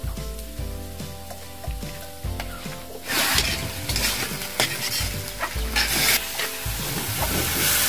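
Chicken pieces sizzling as they fry in a wok, stirred and scraped with a metal spatula. The sizzle grows louder about three seconds in.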